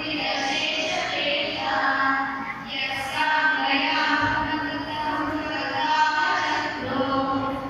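A group of voices singing a devotional chant in a continuous melody.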